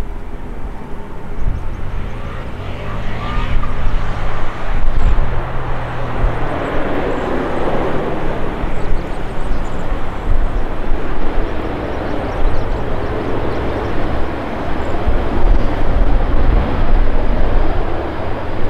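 Jet airliner engines passing close on landing: a continuous broad rushing noise over a low rumble, swelling about a third of the way in and again near the end.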